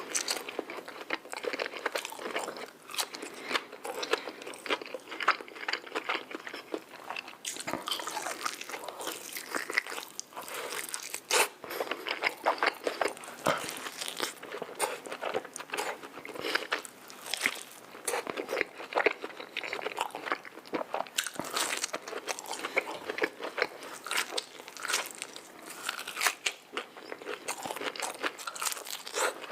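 Close-miked eating sounds: crunchy bites and chewing of fast food, a dense run of irregular sharp crackles.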